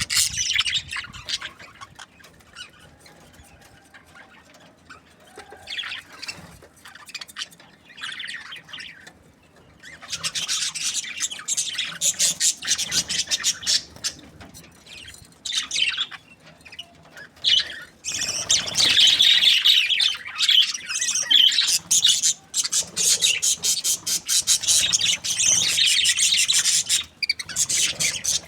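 Budgerigars chirping and chattering in a group, with high rapid warbles and squawks. The calls are sparse and quieter at first, then many birds chatter densely and loudly from about a third of the way in.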